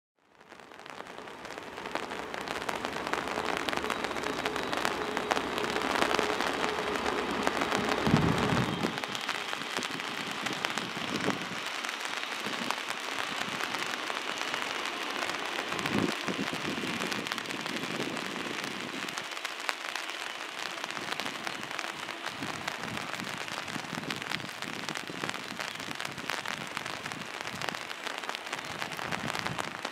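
Rain falling steadily as a crackling hiss. A steady hum runs through the first eight seconds or so and stops with a low thump.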